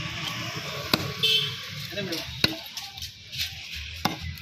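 A knife chopping through a large silver catla fish: three sharp chops about a second and a half apart.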